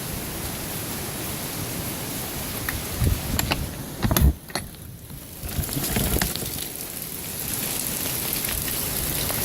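Steady rush of storm wind and rain in winds of around 70 mph, with gusts rumbling on the microphone. There are a few clicks and one louder thump about four seconds in.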